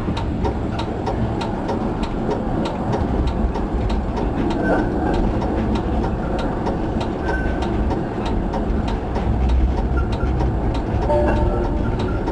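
An EGT6 tram running through a track junction, heard from the driver's cab: a steady low rumble of wheels on rail, with an even faint ticking about two to three times a second.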